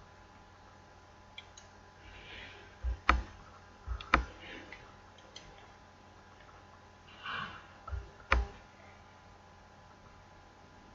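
Computer mouse clicking during work at the desk: a few faint clicks and three pairs of louder knocks with a low thump, with soft breathing between them.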